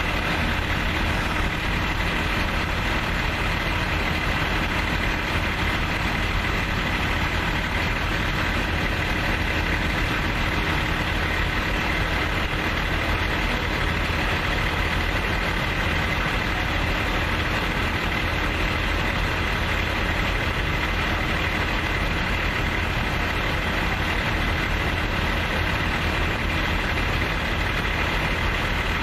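Fire-truck diesel engines running steadily as a constant drone, with a faint steady whine above it. The engines are working the pumps that feed the aerial ladders' water streams.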